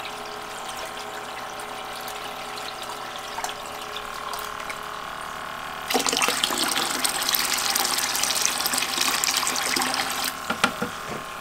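A steady pump hum with a trickle of water, then about six seconds in water is poured from a tumbler into a plastic bucket, splashing for about four seconds. A few light knocks follow near the end.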